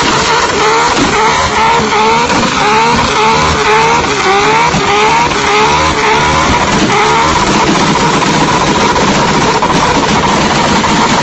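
A car doing a burnout: rear tyres squealing against the pavement under a high-revving engine. The pitch rises over and over, about twice a second, then holds steady from about seven seconds in.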